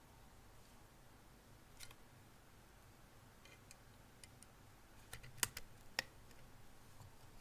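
Faint, scattered clicks and small taps of a tool and fingers on a hard drive's casing as it is pried open, with two sharper clicks about five and six seconds in.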